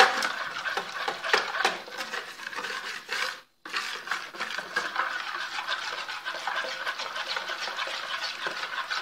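Wire balloon whisk beating quickly around a plastic bowl, its wires scraping and clicking against the sides through a runny, sugary syrup, with a brief break about a third of the way in.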